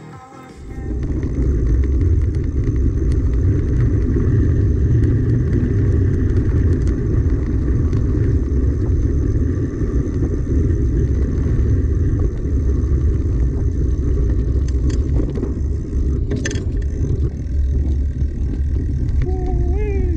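Steady low rumble of wind buffeting and tyre noise picked up by a handlebar-mounted camera as a mountain bike rolls along a dirt trail, starting about a second in. A sharp click comes near the end.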